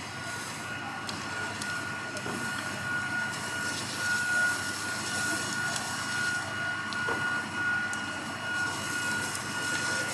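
Fire appliances' engines and pumps running in a steady drone, with a constant high whine over it and a few faint clicks.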